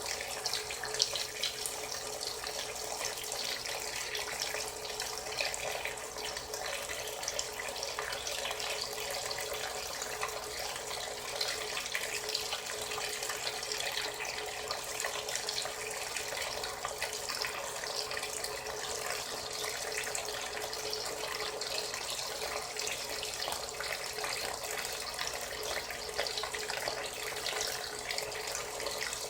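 Frigidaire Gallery Series FWS777GH50 top-loading washing machine filling: a steady rush of water pouring into the tub, with a faint steady tone underneath.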